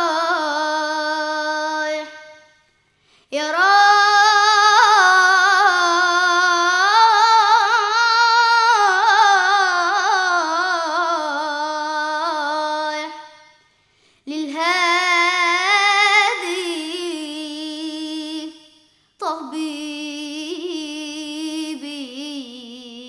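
A young male munshid singing an Arabic ibtihal (Islamic devotional supplication) unaccompanied, drawing out long wavering melismas on held vowels. He sings four phrases with short breaks between them, the longest running about ten seconds.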